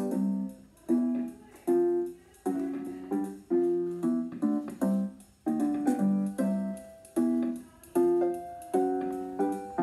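Small electronic keyboard playing a built-in demo tune in a piano voice: chords struck about once a second, each one ringing out and fading before the next.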